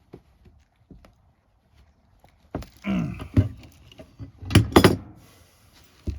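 Metal knocks and clatter of gas pipe fittings and tools being handled, starting a little over two seconds in, with two sharp strikes near the middle.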